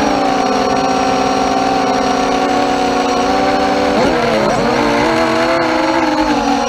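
MXP230 mini quadcopter's brushless motors and propellers whining steadily, heard through the onboard GoPro. About four seconds in, the several tones wobble quickly up and down as the throttle shifts while the quad banks and rolls.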